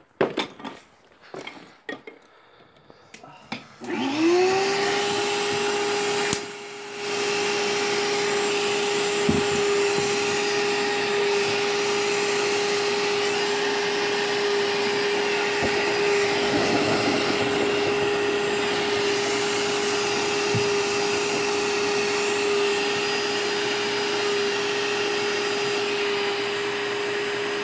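A few knocks and clatters, then about four seconds in an electric blower motor starts, its whine rising quickly to one steady pitch, and runs on steadily, blowing air into a homemade cinder-block forge fire.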